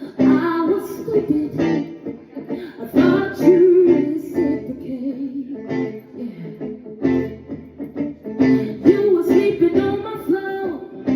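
Live song with guitar and a singing voice.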